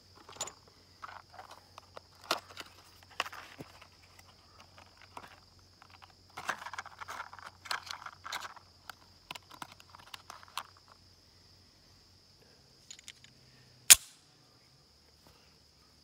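Insects singing steadily at a high pitch, with scattered clicks and rustles of handling close to the microphone and one sharp, loud click about fourteen seconds in.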